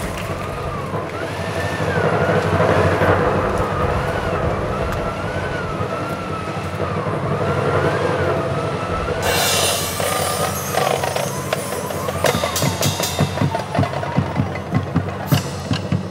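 Marching band music: sustained low chords under a slowly wavering high tone, then a cymbal-like crash about nine seconds in and steady drum strokes from about twelve seconds in.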